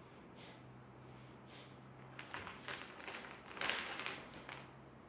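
Faint scraping and rustling of a body and hands shifting on a wooden floor. The sounds start about two seconds in and are loudest a little past the middle.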